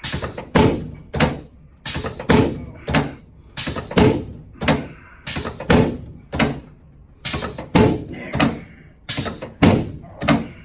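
A quick series of heavy thumps on a padded chiropractic table, about two a second with a few short pauses, as the spine is adjusted with the patient lying face down.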